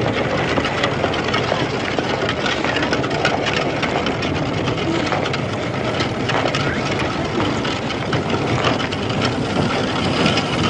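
Electric street tram running on its rails: a steady, dense running noise with many small knocks and clatters, and near the end a thin, steady squeal from the wheels.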